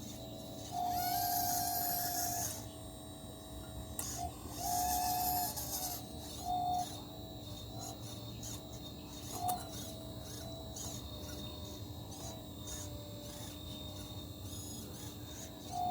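Small electric motors of a 1/12-scale RC excavator whining in on-off runs, two of a second or two each, then shorter blips, over a constant low hum.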